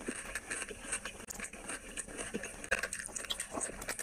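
Close-miked chewing and mouth sounds of rice and curry eaten by hand: an irregular run of wet smacks and clicks.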